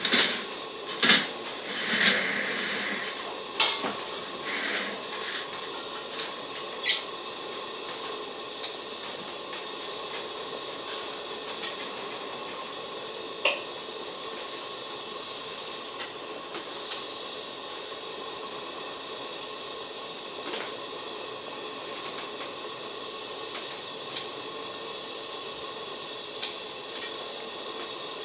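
Large aluminium pot of beef soup at a rolling boil: a steady hiss of bubbling broth, with scattered short pops and clicks, most of them in the first few seconds.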